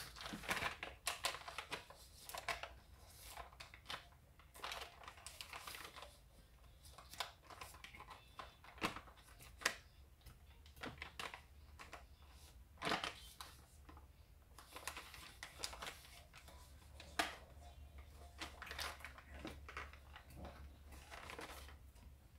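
Gift-wrapping paper crinkling and rustling in irregular short bursts as it is handled and folded, with clear packing tape being pulled from its roll, and a few sharp taps.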